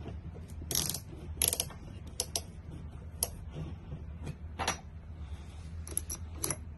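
Irregular clicks, knocks and short scrapes of a Bosch GSR 18V Flexi-Click cordless drill and its attachments being handled and fitted by hand, with no motor running, over a steady low hum.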